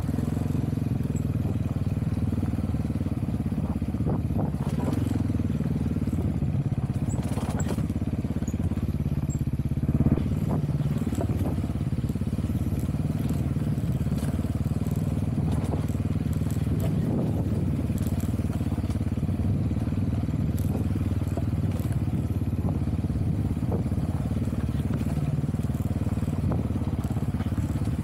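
GPX Moto FSE300R dirt bike's engine running at a steady, low-pitched drone, with a single knock about ten seconds in.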